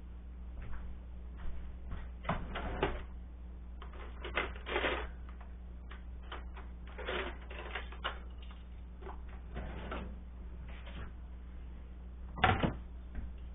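Kitchen utensils clicking and clattering as they are rummaged and handled, with a sharp clack about twelve seconds in as a plastic cutting board is lifted, over a steady low hum.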